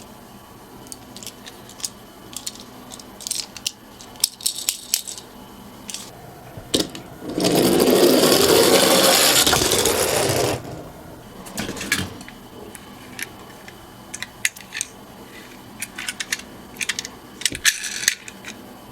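Small clicks and rattles of toy minicars being handled, with a loud steady rolling rumble for about three seconds near the middle as a toy car runs down a slope.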